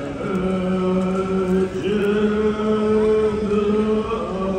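A group of voices chanting a Tibetan Buddhist prayer in unison on one steady pitch, in long held notes with short breaks between them.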